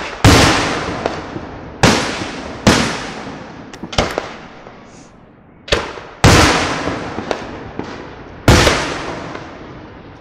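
Aerial firework shells bursting overhead: about six loud booms in quick succession, each dying away over a second or more, with a few lighter pops between them.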